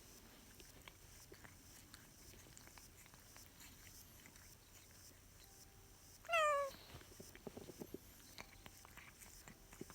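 A domestic cat meows once, a single short call falling in pitch, about six seconds in; otherwise only faint small clicks and taps.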